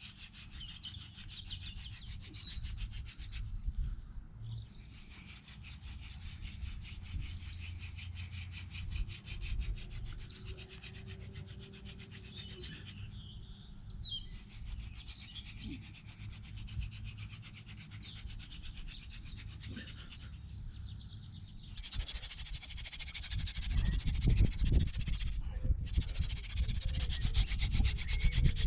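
Hand-drill fire set being burned in: an elder spindle spun between the palms grinds against an ivy hearth board with a dry, rough wood-on-wood rubbing. The rubbing gets much louder and harsher for the last several seconds as the spinning is pushed harder. Birds chirp in the background.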